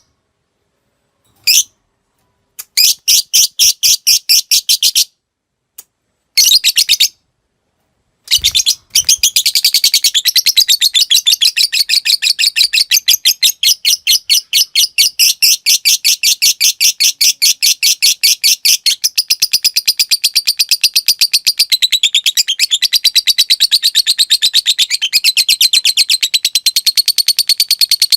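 Lovebird singing: a few short bursts of quick clipped chirps ('ngetik'), then from about nine seconds in one long unbroken 'ngekek' trill of rapid, even, high chirps that keeps going to the end. This long 'ngekek panjang' is the song prized in fighter lovebirds.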